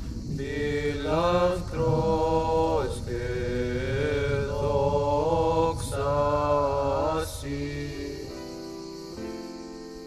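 Background music of chant-like singing: phrases of held notes that glide up and down. After about seven and a half seconds the singing gives way to quieter, steady held tones.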